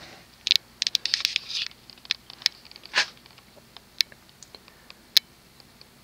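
Hampton Bay Patriot ceiling fan with a 188 mm Alaska spinner motor running at medium-low speed, a faint steady low hum. Over it come scattered sharp clicks and crackles, thickest in the first two seconds, with a louder one about three seconds in.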